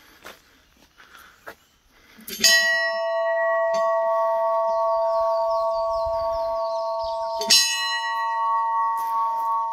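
A small hanging metal bell struck twice by its clapper, about five seconds apart; each strike rings on as a steady tone of several pitches that slowly fades and is still ringing at the end.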